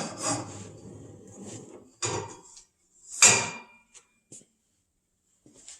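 Metal parts of a garage door opener rail clanking and knocking as they are handled. There is a rattle at the start, a knock about two seconds in, and a loud clank about three seconds in that rings briefly, followed by a few light clicks.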